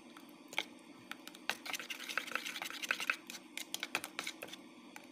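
A plastic scoop stirring and tapping in a bowl of pancake batter: irregular light clicks and knocks, busiest about two seconds in. A steady low hum runs underneath.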